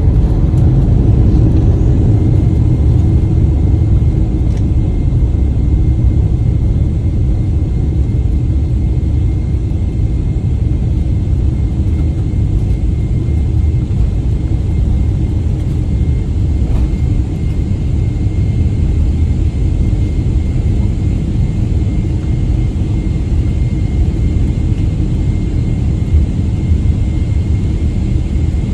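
Airliner cabin noise during the landing roll-out: a steady deep rumble of the jet engines and the wheels on the runway, easing slightly as the aircraft slows, with a faint steady high whine.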